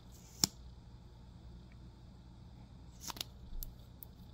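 Sharp plastic clicks from a mascara tube and its cap being handled as the wand is pulled out and the cap put back: one click about half a second in, then a few quicker clicks around three seconds in.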